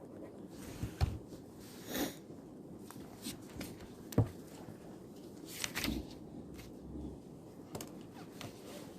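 Quiet room tone with a few scattered small knocks and rustles, the sharpest knock about four seconds in.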